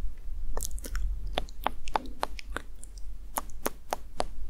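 Close-miked ASMR trigger sounds: a string of soft, sharp clicks at irregular spacing, about a dozen in all, over a steady low hum.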